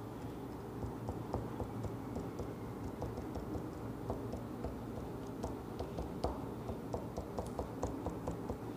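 Quick, irregular light taps of a pen tip dotting onto paper laid on a wooden table, several ticks a second and thicker toward the end, over a steady low hum.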